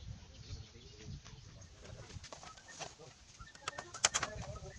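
Small hammer tapping on a bamboo frame: a few scattered light taps, then a quick run of about six sharp strikes near the end.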